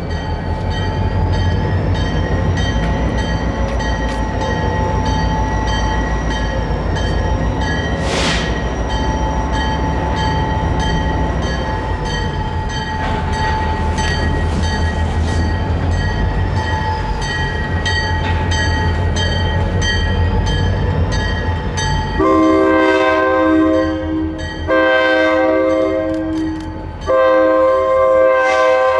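Diesel freight locomotive rumbling steadily as it approaches, then sounding its horn in three long blasts over the last seven seconds.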